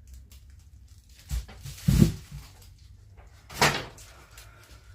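Grocery items being handled and set down: a few dull thumps and knocks, the loudest and deepest about two seconds in.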